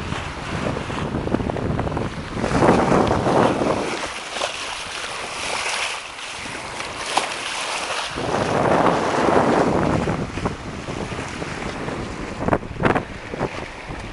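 Wind buffeting the microphone in gusts over the rush and splash of water along the hull of a sailing yacht under way. Midway the wind noise drops for a few seconds, leaving the hiss of water, and a few brief knocks come near the end.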